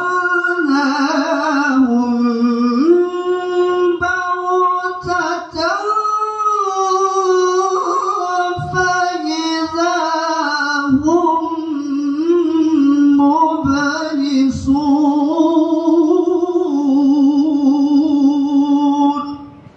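A man reciting the Quran in melodic tilawah style, amplified by a microphone: a long sung passage with melismatic ornaments and wavering trills on held notes. It stops shortly before the end.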